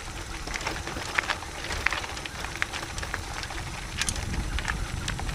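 Mountain bike rolling downhill on a dirt road strewn with dry eucalyptus leaves and bark. The tyres crackle and crunch, with scattered sharp ticks over a low rumble.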